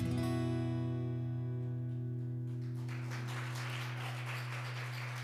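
Acoustic guitar strumming a last chord and leaving it to ring out, fading slowly.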